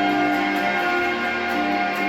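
Instrumental music with sustained, layered chord tones; the chord changes about halfway through.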